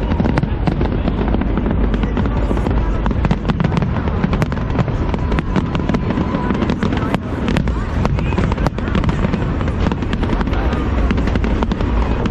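Fireworks display going off in a dense, continuous barrage of bangs and crackles over a deep rumble, with music playing underneath.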